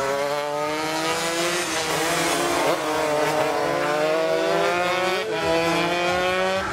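Several two-stroke underbone race motorcycles running hard on the track, their engine notes repeatedly climbing in pitch and dropping back.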